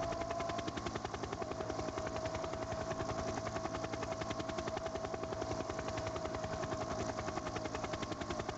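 Camera helicopter's rotor chopping in a fast, even beat, with a steady engine whine over it.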